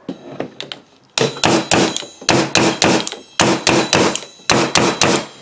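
The back of a pair of vice grips (locking pliers) striking a keyless drill chuck in rapid glancing blows to break loose a frozen, jammed chuck. There are a few light taps first, then from about a second in a quick run of ringing metallic clangs, roughly three or four a second.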